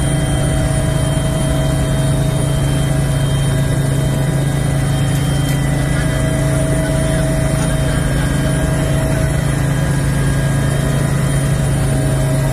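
Helicopter in flight heard from inside its cabin: a loud, unbroken drone of engine and rotor with a steady low hum and a thin high whine over it.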